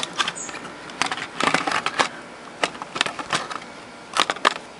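Irregular sharp clicks, taps and short scrapes of a desoldered function selector switch and the amplifier's circuit board being handled on an electronics workbench.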